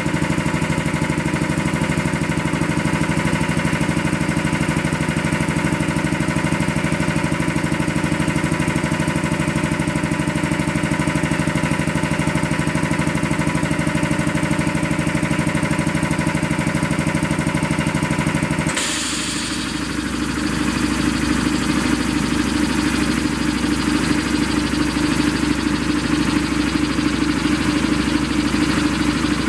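ADSON oil-free multi-cylinder piston air compressor, driven by an electric motor, running steadily and pumping up its receiver tank. About two-thirds of the way in the sound changes abruptly, with a short hiss.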